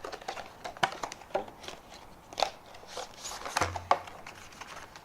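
A product box and its packaging being opened and handled: irregular sharp clicks and crinkling rustles.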